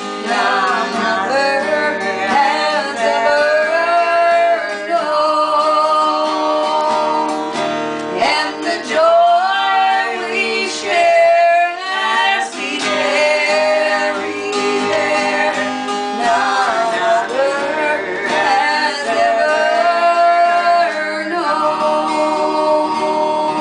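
Two women singing a song together, accompanied by an acoustic guitar.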